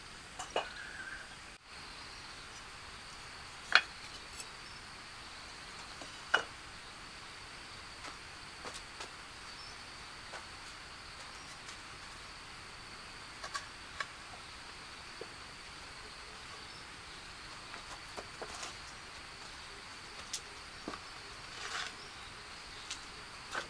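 Scattered sharp knocks and taps from hand work on the build, the loudest about 4 and 6 seconds in, over a steady high drone of insects and a background hiss.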